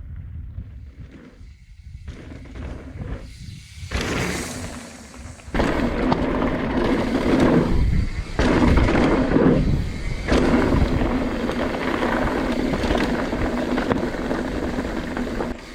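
Mountain bike riding fast down a rocky dirt trail: a dense rush of wind buffeting and tyre and frame rattle, getting much louder about four and five and a half seconds in as the speed builds.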